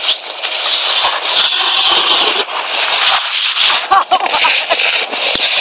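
Snowboard sliding over packed snow: a steady scraping hiss that breaks off briefly a few times.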